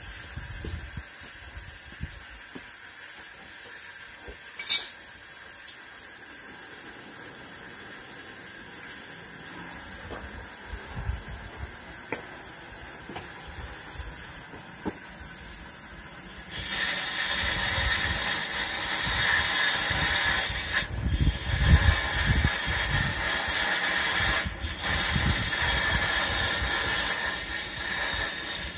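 Steady hiss of compressed air driving the blowtorch that heats the head of a big single-cylinder Fairbanks Morse engine before starting. The hiss grows louder about two-thirds of the way through, and there is one sharp click about five seconds in.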